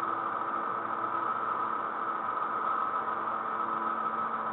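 Steady background hum and hiss with a few faint steady tones under it, unchanging throughout, heard over a video call's audio.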